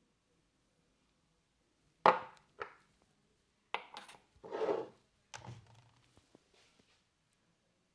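A few sharp knocks and clatters, the loudest about two seconds in, with a short rustle in the middle, fading to faint ticks near the end.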